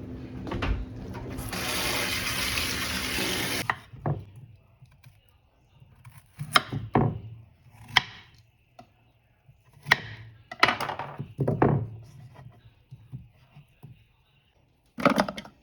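Kitchen tap running for about two seconds, then a series of separate knocks and clatters, like utensils and dishes being handled.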